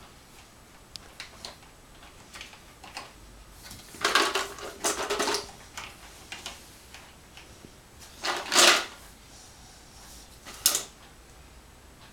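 Plastic magnetic letters clicking and clattering against a metal door as a child moves them: scattered light clicks, a longer rattle about four seconds in, another around eight seconds in, and a sharp click near the end.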